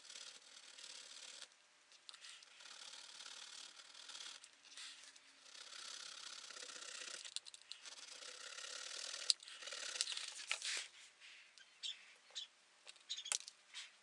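Needle file rasping against the edge of a cut piece of coin metal in faint strokes a second or two long, then a few sharp clicks and taps near the end.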